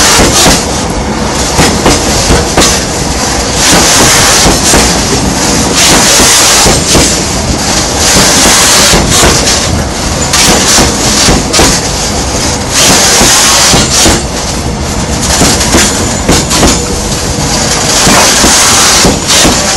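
Freight train of open-top wagons rolling past right beside the track: loud wheel rumble with sharp clacks as the wheels cross rail joints, swelling and dipping as each wagon's wheelsets go by.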